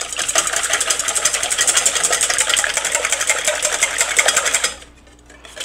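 Wire whisk beating raw eggs in a stainless steel bowl: fast, even strokes of the wires against the metal, stopping shortly before the end.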